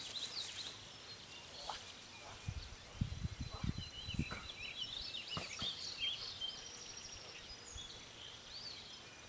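Several birds chirping and twittering over a steady background hiss, busiest in the middle, with a few low thumps about three to four seconds in.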